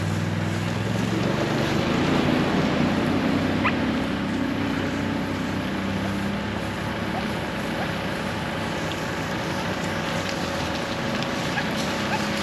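Tow vehicle's engine and road noise heard from inside the cabin: the engine note climbs as it pulls away, then settles into a steady rush of tyres and wind at cruising speed.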